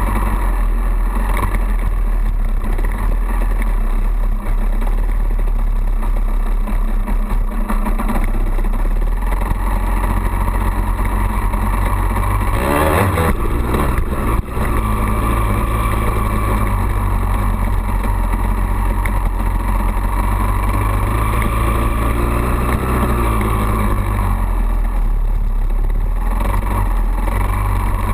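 2002 Honda CR250R's single-cylinder two-stroke engine running steadily while the bike is ridden along a dirt trail, with a brief rough patch and a dip about halfway through.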